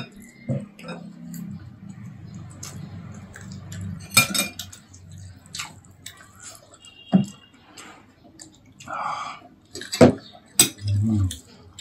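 Spoons and fingers clinking against ceramic plates and bowls during a meal, with a few sharp clinks about four, seven and ten seconds in and quieter eating noises between.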